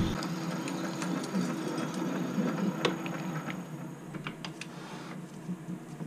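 Metal lathe spinning down after its motor is switched off. The motor hum cuts out at the start, and the off-centre aluminium block in the four-jaw chuck coasts slower and slower to a stop, with scattered light ticks and rattles.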